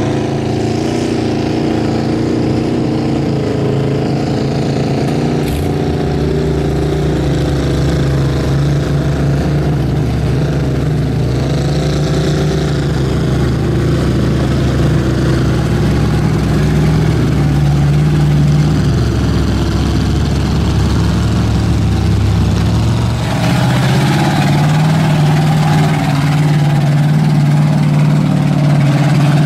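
Engine of a lifted mud-bogging pickup truck running at low speed through a mud pit, a steady low engine note whose pitch wavers slightly. About three quarters of the way through it gets rougher and a little louder.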